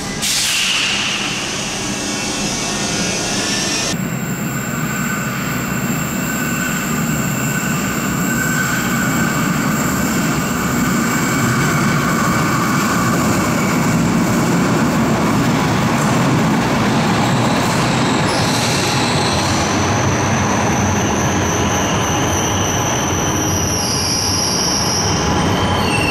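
Yellow Stadtbahn light-rail trains running through an underground station: a steady rumble of wheels on rails with high, steady wheel squeal, which grows stronger in the second half.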